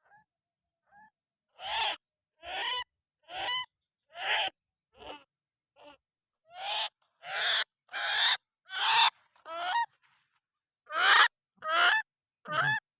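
White-breasted waterhen (ruak-ruak) calling: a long series of short, loud, croaking calls, roughly one every two-thirds of a second, with a brief pause around ten seconds in.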